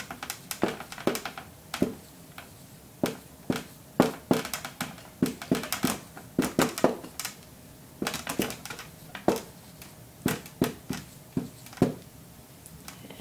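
Dry-erase marker writing on a whiteboard: a run of short, irregular strokes as the words are written out.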